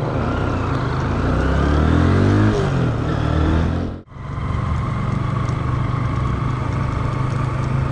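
Motor scooter engine pulling away, its pitch rising over the first two seconds or so and then falling back. About four seconds in the sound cuts out abruptly, then the engine runs on steadily at a lower pitch.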